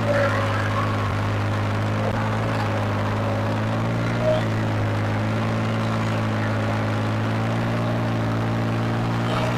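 New Holland 3630 tractor's three-cylinder diesel engine running steadily at a constant pitch, under load as it pulls a tillage implement through hard, dry soil.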